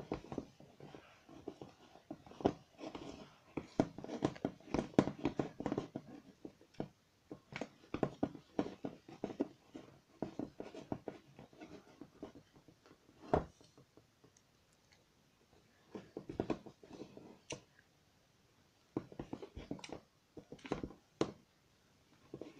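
A spoon stirring thick homemade slime in a bowl as the borax activator sets it: irregular clicks and scrapes of the spoon against the bowl, with a couple of short pauses.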